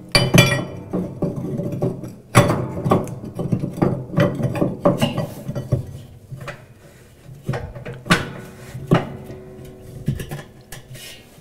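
Irregular metal clanks and scrapes, some ringing briefly, as a flat steel hub tool is fitted and worked against a Speed Queen washer's spindle hub inside its steel tub.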